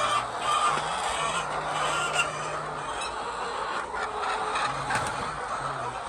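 A flock of hens clucking, a continuous din of many overlapping calls.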